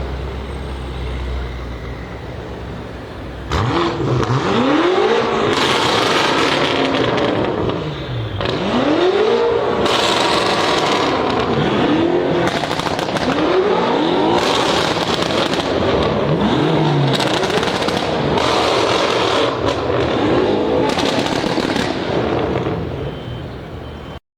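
BMW M5's twin-turbo V8 exhaust, rumbling low at first, then revved hard over and over from about three and a half seconds in, roughly every two seconds. Each rev rises and falls in pitch and ends in loud crackles and pops on the overrun.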